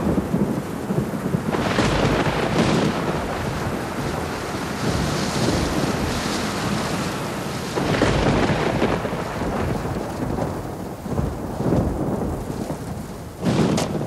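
Heavy rain falling steadily during a thunderstorm, with rolls of thunder about two seconds in and around eight seconds, and a sharper loud burst near the end.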